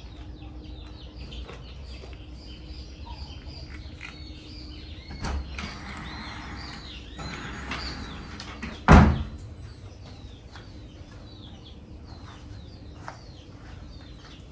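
Small birds chirping repeatedly in the background, with a single loud door knock about nine seconds in.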